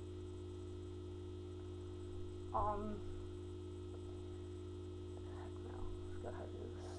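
Steady electrical mains hum, with a brief wordless vocal sound about two and a half seconds in and a few faint murmurs near the end.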